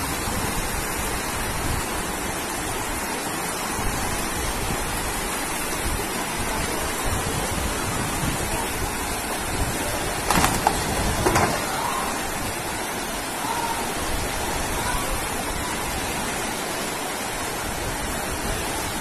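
Fast-flowing floodwater rushing down a street: a steady, even rush of water noise. A couple of brief louder sounds stand out about ten and eleven seconds in.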